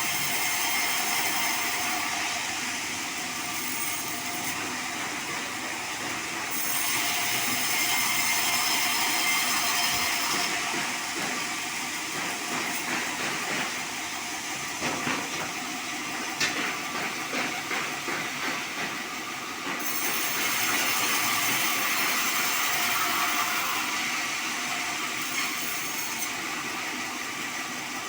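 Bandsaw running and cutting through a sonokeling (Indian rosewood) log: a steady rushing hiss of the blade in the wood over the machine's running noise, swelling and easing as the cut goes on, with some rattling clatter in the middle.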